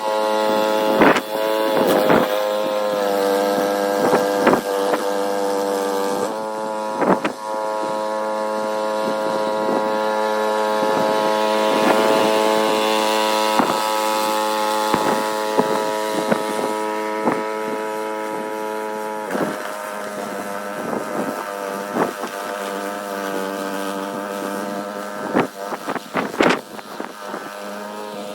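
Small gasoline snowblower engine running steadily under load, with scattered sharp clicks and knocks.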